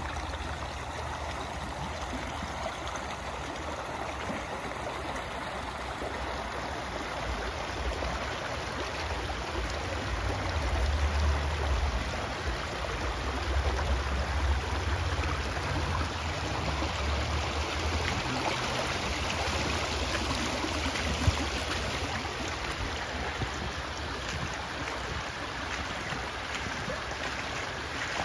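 Spring water running over rocks and gravel in a shallow stream, a steady rushing wash. There is a low rumble for several seconds midway and a single sharp click near the end.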